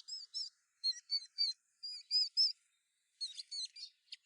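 Young hand-reared songbirds giving short, high chirps in quick clusters of two to four, with brief pauses between.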